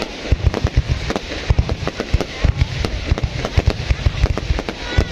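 Aerial fireworks going off in a rapid, continuous barrage of sharp bangs and pops, several a second.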